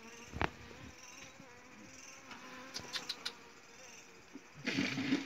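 Honey bees buzzing in a steady, wavering hum around an opened hive as the comb is cut out. There is a sharp knock about half a second in, a few small clicks around three seconds, and a short, louder scraping noise near the end.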